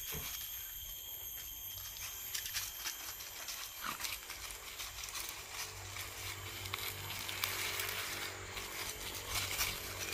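Dry leaf litter rustling and crackling as two dogs and a macaque move and scuffle on it, with more activity in the second half. A steady faint high-pitched hum runs underneath.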